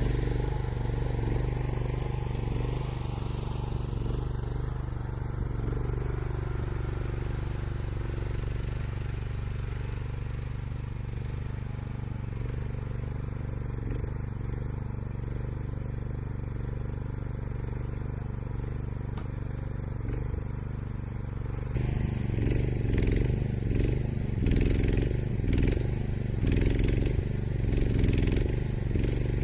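Engine and hydraulics of a homemade skid steer loader running steadily, with a whine that rises in pitch over the first few seconds. About 22 seconds in the sound turns louder and rougher, with clattering and scraping.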